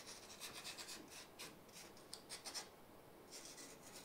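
Faint scratching and rubbing from handling foam model parts: the nozzle of a foam-safe cyano glue bottle drawn along a foam edge, then the foam pieces pressed and fitted together.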